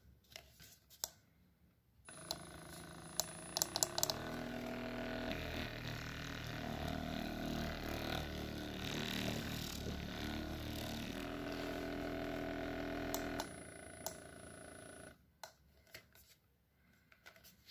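Pink percussive massage gun with its ball head fitted, its motor running with a steady buzzing hum that starts about two seconds in and gets louder about two seconds later. The pitch shifts a few times, then it drops in level and stops near the end, with a few clicks of handling before and after.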